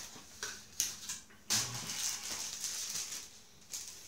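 Packaging being handled: a cardboard insert scraping as it is lifted out of a box, then a plastic bag crinkling for about two seconds.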